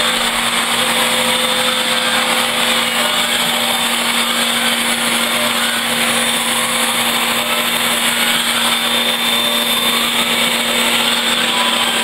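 Upright vacuum cleaner running steadily at full speed, its motor giving a low hum and a high whine over the rush of suction, while the hose's brush attachment is run along a short-coated dog's back.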